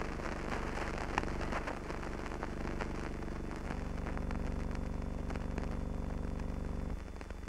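Old film soundtrack noise: a steady low hum under a faint thin whine, with scattered crackles and pops throughout. The hum changes abruptly about halfway through and again near the end.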